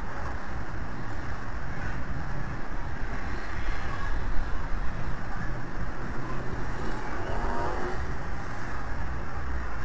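Steady low rumble of wind buffeting an outdoor nest-camera microphone high on a building.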